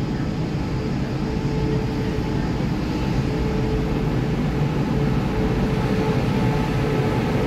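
Taiwan Railway EMU3000 electric multiple unit standing at an underground platform, its equipment giving a steady low hum with a constant mid-pitched tone. The sound grows slightly louder toward the end.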